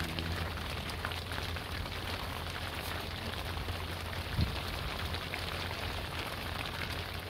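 Steady rain falling on the boat, with a single dull knock about four seconds in.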